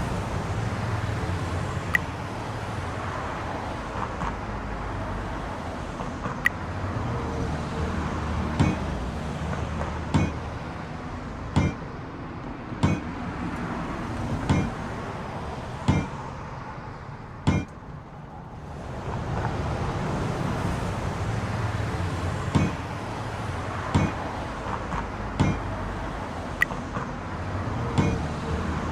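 Sharp metallic knocks, one every second or so through the middle stretch and scattered elsewhere, over a steady low rumble.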